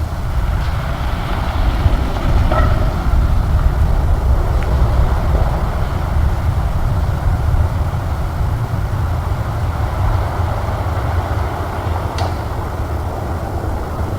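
A vehicle passing on a gravel road: a steady low rumble with tyre-on-gravel noise. A few sharp clicks or knocks sound beneath it, the clearest about twelve seconds in, which the recordist takes for claps, snaps or knocks masked by the car noise.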